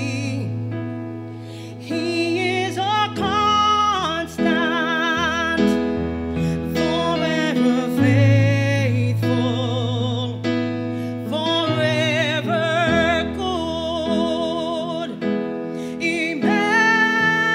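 A woman singing a gospel song solo, with wide vibrato on held notes, over an instrumental accompaniment of long held bass notes.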